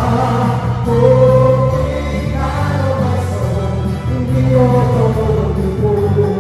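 Live Christian praise band: a male lead singer and backing singers singing a worship song in long held notes, over electric bass guitar and keyboard.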